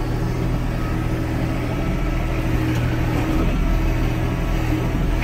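Kubota L3560 tractor's diesel engine running steadily, heard from inside the cab, with no clear rise or fall in speed.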